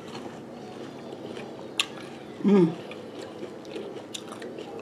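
People chewing mouthfuls of Frosted Flakes and Raisin Bran with milk: soft, steady chewing with small clicks, one sharper about two seconds in. A short vocal sound comes about halfway through.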